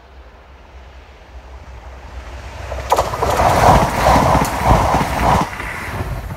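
ScotRail diesel multiple unit passing close by at speed: a rising approach, then a sudden loud rush of wheels and air for about two and a half seconds with a rapid beat of wheel thumps, easing off as the train goes by.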